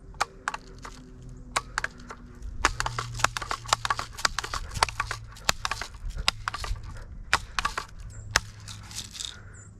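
Dry leaves and twigs crackling and snapping underfoot in quick, irregular clicks, busiest through the middle of the stretch.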